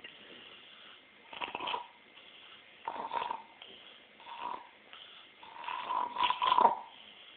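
A 45-year-old man snoring in his sleep: four snores about a second and a half apart, the last one longer and louder than the rest.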